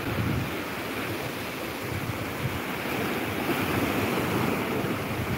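Sea surf breaking and washing up a beach: a steady rushing wash, with wind buffeting the phone's microphone.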